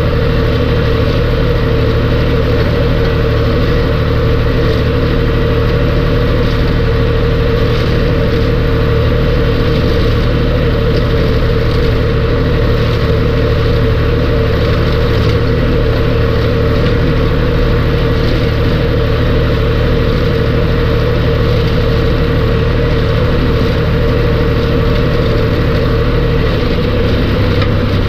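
John Deere tractor's diesel engine running steadily under way, heard from inside the cab as a loud, even drone; its note changes slightly near the end.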